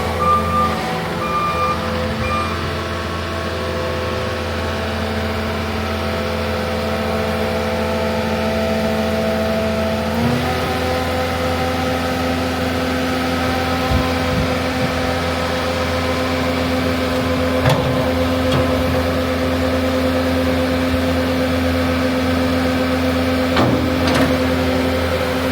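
Caterpillar 299D2 skid steer's four-cylinder C3.8 diesel engine running at a steady speed, which steps up slightly about ten seconds in and then holds. A few short electronic beeps sound in the first couple of seconds.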